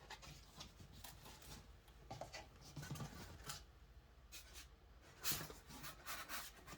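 Cardboard box and styrofoam packing being handled: scattered light rustles and knocks, with a louder rustle about five seconds in.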